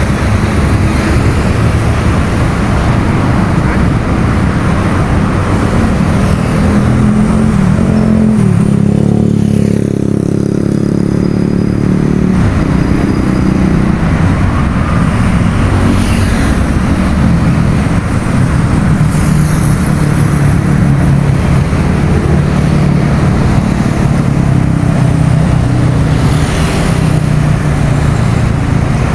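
Loud, steady mechanical hum with a pitched drone whose pitch glides up and shifts around partway through, over a constant rushing noise.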